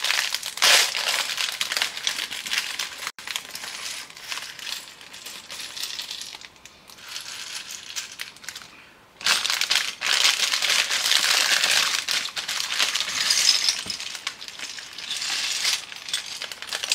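Plastic LEGO parts bags crinkling as they are torn open, and small plastic LEGO pieces clattering as they are poured out and spread by hand onto a cutting mat. The longest, densest clatter starts about nine seconds in.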